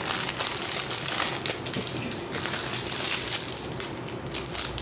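Thin clear plastic packaging crinkling as it is handled and pressed, easing off near the end.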